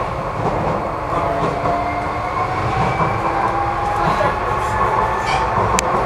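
Docklands Light Railway train in motion: a steady rumble of wheels on the track, with the traction motors' whine slowly rising in pitch. There is a single sharp click near the end.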